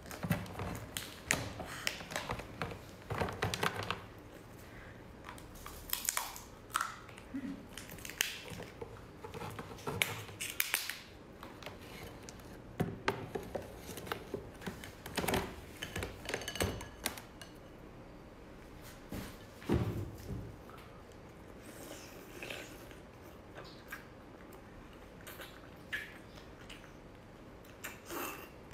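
Shell of a whole cooked lobster cracking and snapping as it is broken apart by hand: irregular cracks and clicks, busiest in the first half and sparser later on.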